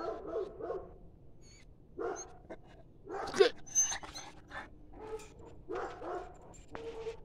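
A dog barking repeatedly in short, irregular barks, the loudest about three and a half seconds in.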